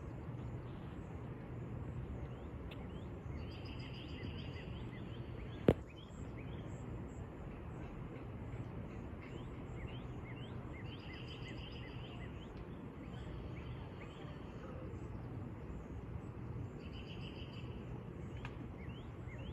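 Songbirds singing outdoors, short repeated phrases and scattered chirps every few seconds over a steady low background hum. One sharp click about six seconds in.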